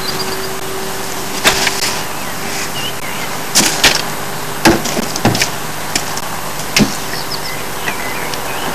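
About six sharp knocks and clunks, spread irregularly, as fishing rods and tackle are set down in a small moored boat, over a steady hiss.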